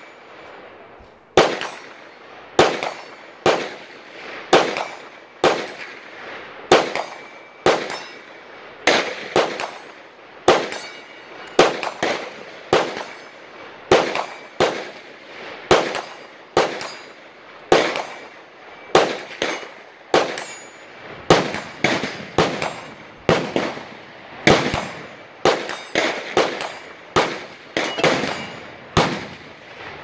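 Gunfire at a shooting range: a steady stream of shots from several shooters at irregular spacing, each with a short ringing tail. The shots come about once a second at first and grow faster in the second half.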